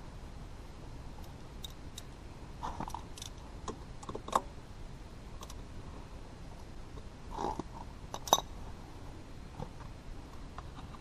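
Scattered small clicks and taps of a socket wrench working the 12 mm gear oil drain plug on a Kymco Agility 50 scooter's gear case, with two sharper metallic clicks about four and eight seconds in and a few soft rustles.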